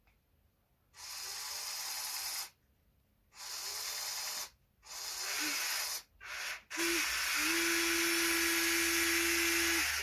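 Small electric motors of an RC excavator running in five short bursts that start and stop sharply as the controls are worked. The last run is the longest, about three seconds, with a steady hum under it.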